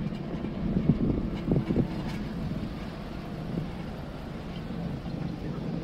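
City street traffic: a steady low rumble of car engines and tyres, louder for a moment about a second in.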